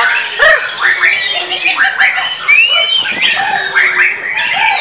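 White-rumped shama singing a fast, unbroken run of varied whistled notes, many sweeping up and down in pitch.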